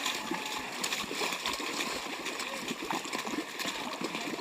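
Runners' feet splashing through deep mud and water on a trail, an irregular run of splashes, with faint voices of other people in the background.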